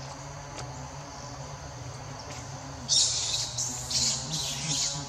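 A steady low hum, then about three seconds in a run of several loud, shrill, high-pitched animal calls.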